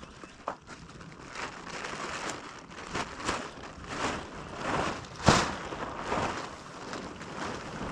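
Rustling and crunching scuffs, repeating about every second, with a sharp louder knock a little past halfway.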